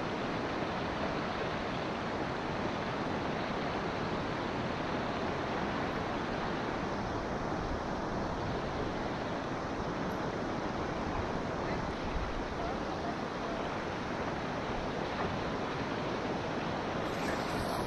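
Steady rush of river whitewater heard from a kayak on the water.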